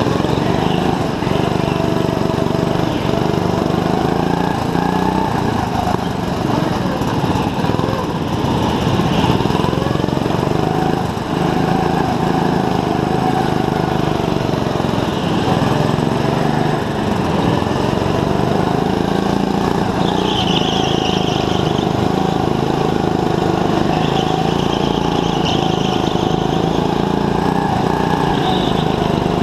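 Go-kart engine heard from on board the kart, running hard continuously and rising and falling in pitch as the kart accelerates and slows through the corners, with a few brief high-pitched squeals.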